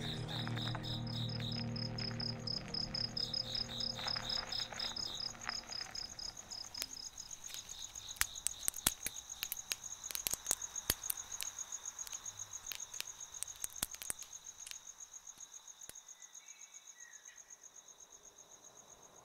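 Crickets chirping in fast, even pulses, with a campfire crackling and popping from about six seconds in. A low hum fades out in the first few seconds.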